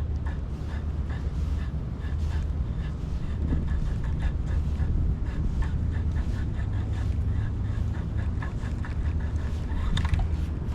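Wind rumbling on the microphone, with the steady clicking of a fishing reel being cranked to retrieve a lure, about two to three clicks a second.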